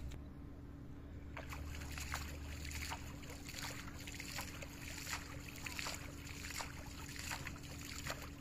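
Shallow pond water splashing over and over at the edge of a cast net being hauled in: a quick, irregular run of splashes that starts about a second and a half in.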